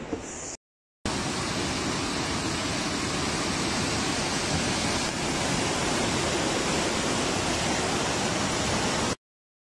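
Fast-flowing brown floodwater rushing through a street: a steady, dense rush of water. It starts after a short gap of silence about a second in and cuts off abruptly near the end.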